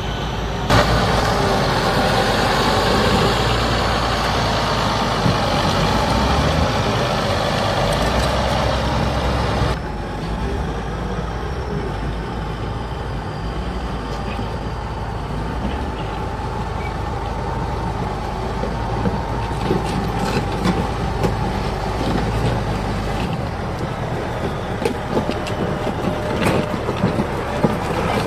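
Heavy diesel engine running steadily with a loud hiss over it. The hiss drops away about ten seconds in, and scattered clicks and knocks come in near the end.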